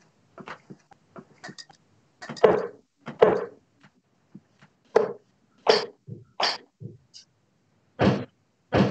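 A person coughing in a series of short, separate coughs and throat-clearings, about eight in all.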